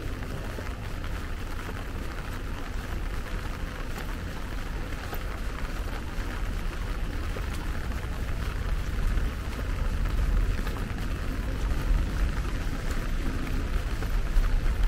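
Steady rain falling on wet brick paving, an even hiss, with a low rumble underneath that grows gradually louder through the second half.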